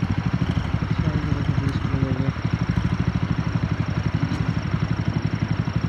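Motorcycle engine idling steadily, its exhaust beats coming fast and even.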